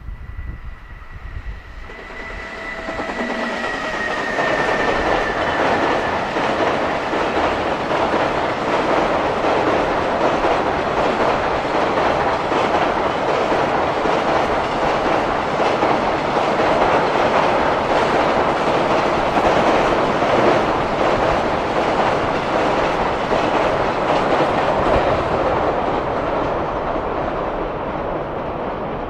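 JR Freight electric container train passing close by, its long string of container wagons rolling past with the wheels clacking steadily over the rail joints. It begins with a faint high whine that dips slightly in pitch as the train draws level, then the sound swells over the first few seconds and stays loud until it eases near the end.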